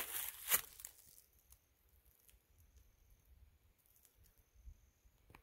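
Footsteps crunching and rustling through dry leaves and brush, two sharp crunches in the first second, then near quiet with a few faint, thin high tones.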